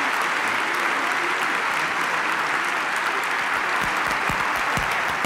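Audience applauding steadily, a dense and even clapping. A few low thuds join in during the last second and a half.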